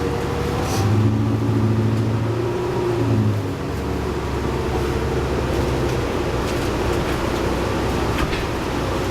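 Cummins ISL9 diesel engine of a 2011 New Flyer D60LFR articulated bus, with its Allison B500R transmission, heard from inside the bus. The engine pulls under load with a strong low hum that eases off about three and a half seconds in, then settles into steadier engine and road noise.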